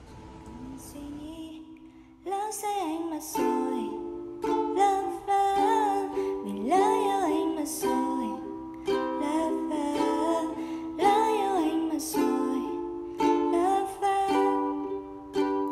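Background music led by a plucked ukulele with a melody line over it, starting about two seconds in after faint background noise.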